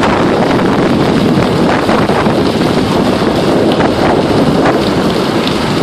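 Diesel engines of heavy road-building machinery, a roller and a motor grader, running steadily in a dense rushing rumble, with wind buffeting the microphone.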